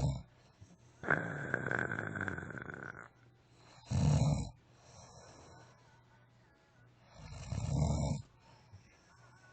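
A sleeping person snoring. There are short, low snores at the start, about four seconds in, and again about seven to eight seconds in. Between the first two comes a breath of about two seconds with a steady high whistle in it.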